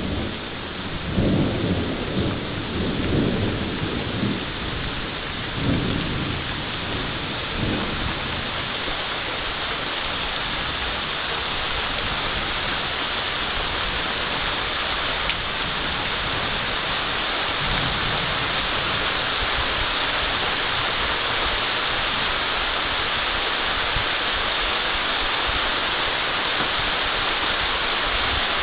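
Heavy rain falling steadily in a thunderstorm. Rolling thunder rumbles for the first eight seconds or so, and a fainter rumble comes about two-thirds of the way through. The rain grows a little louder toward the end.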